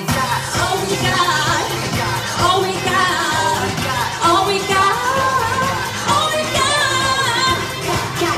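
Recorded music with a singing voice over a steady beat, the voice winding up and down in ornamented runs.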